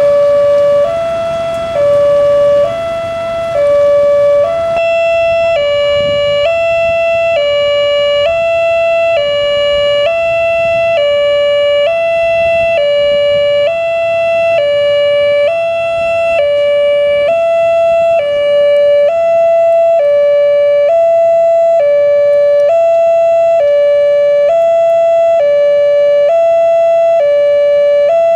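Railway level-crossing warning siren sounding a loud two-note electronic hi-lo tone, switching evenly back and forth between two close pitches: the crossing's alarm that a train is approaching. Passing road traffic can be heard under it for the first few seconds.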